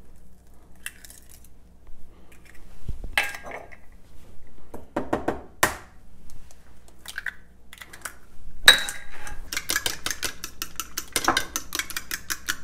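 Eggs knocked and cracked on the rim of a ceramic bowl, with scattered taps and clinks of shell and bowl. About three quarters of the way through, a fork starts beating the eggs in the bowl with quick, even clinks, about six a second.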